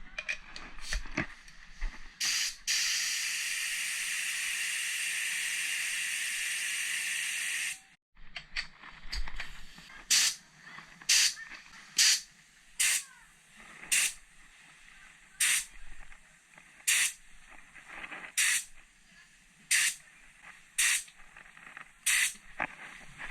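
Compressed-air spray hissing: one steady spray lasting about five seconds, then a run of short blasts about once a second.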